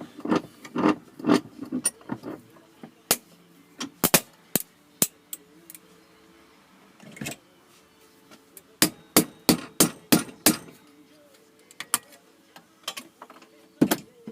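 Sharp clicks and knocks of hand tools and metal parts being handled while a thermostatic radiator valve is taken apart. They come at irregular intervals, with a quick run of about a dozen about nine to eleven seconds in.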